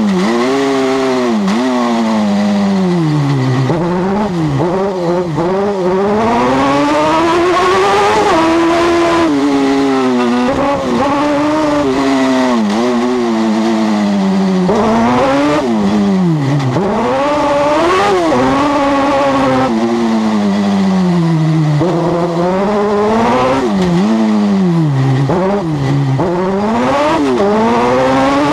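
Super buggy's engine heard onboard, revving hard and dropping back again and again as the car accelerates, lifts and brakes through the corners, its pitch sweeping up and falling many times.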